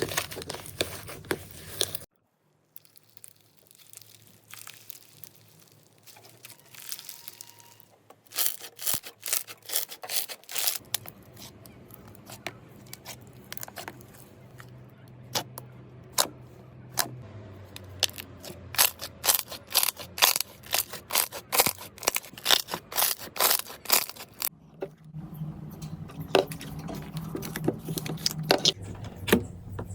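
Slime being squeezed, stretched and poked by hand, making a rapid run of sharp crackles and sticky pops, several a second. The run comes in a few separate stretches with short pauses between them.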